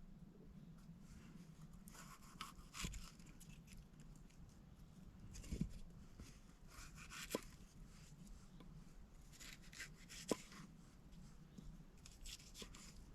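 Faint, intermittent rustling and crinkling in short bursts, with a few sharp light clicks.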